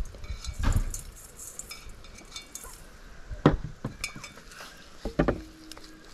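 Stainless steel mixing bowls clinking and knocking against each other and the meat while raw duck pieces are coated in seasoned flour by hand: a few separate sharp clinks, the loudest about halfway through.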